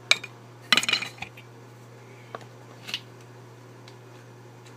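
Metal parts clinking and clattering as a makeshift phone fixture in a drill press vise is adjusted: a sharp click at the start, a quick cluster of clatter just under a second in, then a few lighter clicks.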